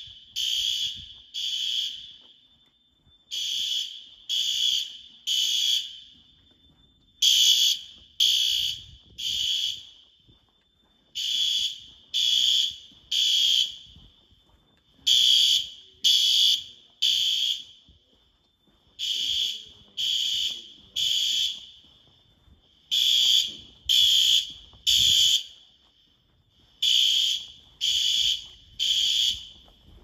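Notifier fire alarm system's System Sensor SpectrAlert Advance horns sounding the temporal-three evacuation pattern: three loud, high-pitched half-second beeps, then a pause, repeating about every four seconds.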